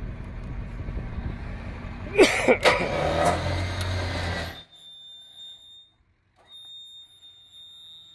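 A vehicle engine running steadily, with a loud squealing creak a little over two seconds in, after which the engine note rises. The sound cuts off abruptly past halfway, leaving a faint steady high-pitched whine.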